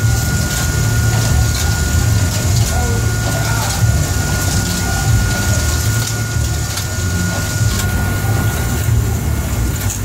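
Longline hooks sliding along a steel magazine rail and clicking and rattling as they are pulled off one by one while the line is set. Under it runs the steady low rumble of the boat's machinery, with a faint steady high whine.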